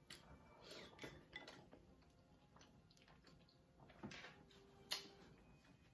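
Faint mouth sounds of eating seafood, wet chewing and lip smacks, with one sharper click about five seconds in.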